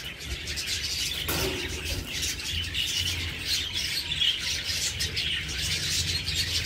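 Budgerigars chattering, a dense run of short high chirps and squawks.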